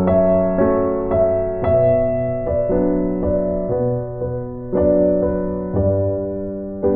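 Background music: piano or electric piano playing slow sustained chords and notes, a new chord struck about every second.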